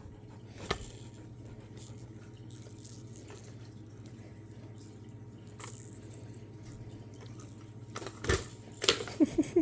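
A plastic fidget cube being handled: a few scattered clicks and knocks over a faint steady hum, with a quick run of sharper clicks near the end.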